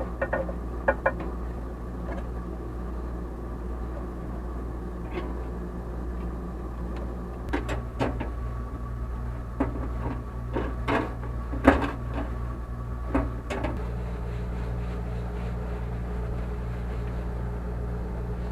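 A steady low mechanical hum, with scattered knocks and clicks: a few near the start and a cluster through the middle, the sharpest about twelve seconds in.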